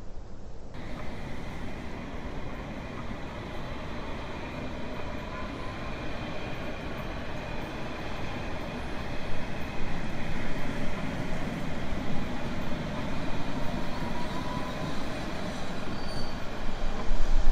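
A train running on rails: a steady rumble and rush of noise with faint whining tones, growing louder toward the end.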